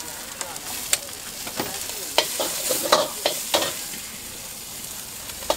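Bean sprouts sizzling in a hot wok as a metal ladle stirs them, scraping and clanking against the wok several times, most between about two and four seconds in.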